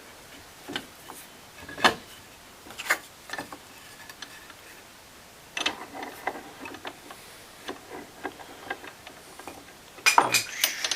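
Metal sash clamps and loose wooden clamping blocks knocking and clicking during a glue-up. Separate sharp knocks come first, then a run of quick light clicks from about halfway, and a louder clatter near the end.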